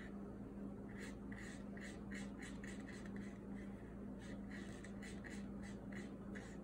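Watercolor brush scrubbing on watercolor paper, blending red paint into yellow: a run of short, soft scratching strokes, about two or three a second, starting about a second in. A faint steady low hum lies underneath.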